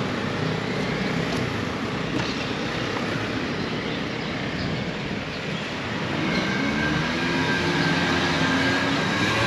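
Road traffic noise. A motor vehicle's engine hum comes in about six seconds in and grows louder, as if the vehicle is approaching.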